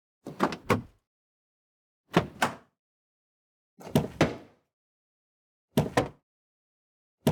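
Car door opened from outside, over and over: each opening is a quick double clunk of the handle and latch releasing. There are five of them, about one every one and a half to two seconds, with silence in between.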